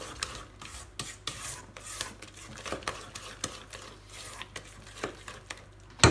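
Spatula folding and scraping cake batter around a mixing bowl: soft, irregular scrapes.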